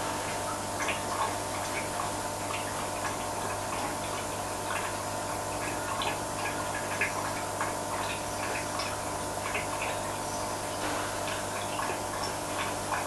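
Aquarium pump humming steadily, with scattered small irregular ticks and drips of moving water.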